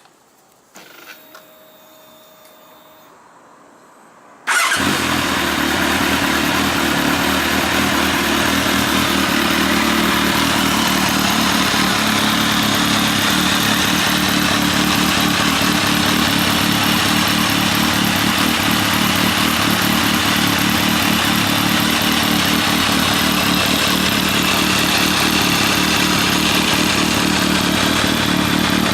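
Kawasaki ZRX1200 DAEG inline-four with an MH Asano titanium-carbon slip-on muffler: a few faint clicks and a low hum, then the engine starts about four and a half seconds in and idles steadily.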